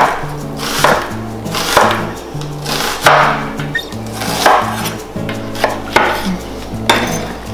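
Chef's knife slicing through a red onion on a wooden cutting board, the blade knocking on the board about once a second, over background music with a steady bass line. Near the end the knife cuts through the base of a mushroom cluster.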